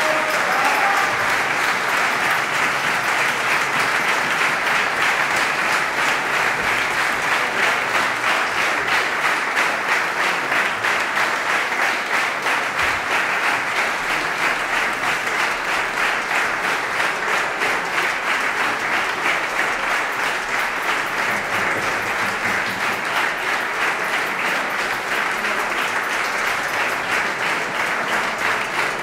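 A large audience applauding steadily: a dense, sustained wash of hand claps, with a brief shout from a voice right at the start.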